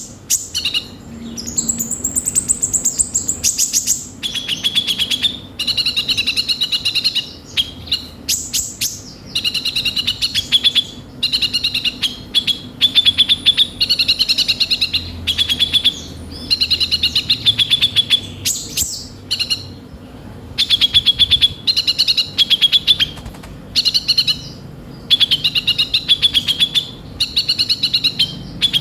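Kolibri ninja sunbird singing a loud, fast song of rapid high chirping trills. The phrases last a second or two and repeat with short pauses, laced with harsh, scratchy filler notes.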